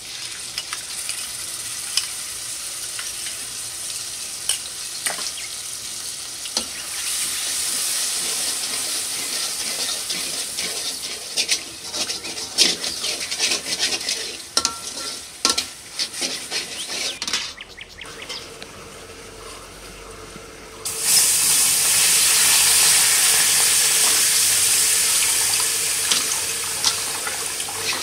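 Food frying in a pan, sizzling steadily while a utensil stirs and knocks against the pan in many sharp clicks. After a short quieter stretch, about three quarters of the way through, the sizzle jumps suddenly louder and holds.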